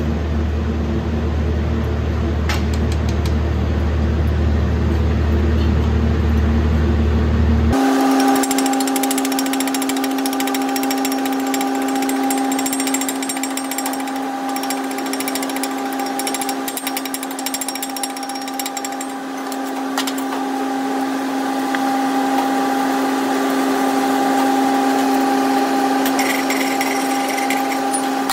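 Stick (shielded metal arc) welding arc burning on steel plate over a strong low welder hum for about the first eight seconds, then the arc stops abruptly. After that a chipping hammer taps rapidly and repeatedly, knocking slag off the fresh weld bead, over a steady machine hum.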